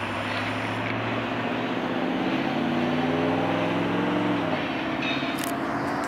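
Union Pacific local freight train rolling away over the rails: a steady rumble with a humming tone that drops in pitch about four and a half seconds in.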